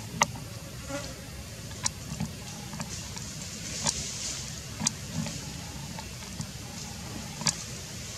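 Outdoor forest ambience: insects buzzing in a high haze that swells about halfway through, over a steady low rumble, with about five sharp clicks at uneven intervals.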